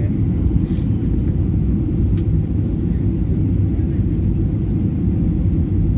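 Steady low rumble of a Boeing 737-800's cabin on landing approach, with the flaps extended: engine and airflow noise heard from a window seat.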